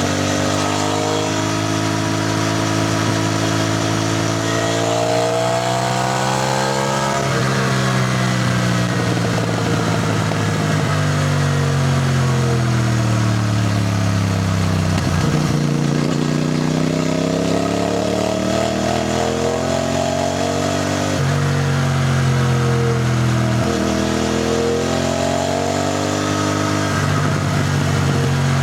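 CFMoto 450NK's parallel-twin engine heard while riding, its pitch climbing under acceleration and sinking as the bike slows, several times over. The pitch steps abruptly about four times, at gear changes.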